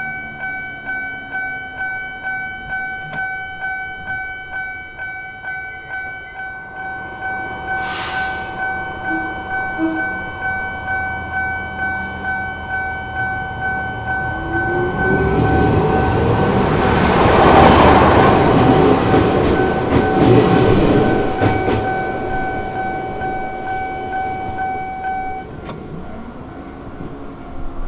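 Japanese level-crossing warning bell ringing steadily at about two strokes a second, with a short horn toot about eight seconds in. A Gakunan Railway electric train then passes over the crossing, wheels clattering over the rail joints, loudest about eighteen seconds in. The bell stops near the end.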